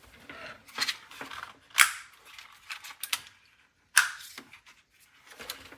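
Keys pressed one at a time on a Razer Huntsman Mini keyboard with linear optical switches: scattered clacks at irregular intervals, the loudest two about two and four seconds in.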